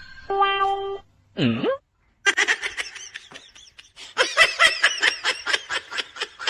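High-pitched laughter in quick repeated peals, starting about two seconds in. Before it come a short steady tone and a brief swooping sound.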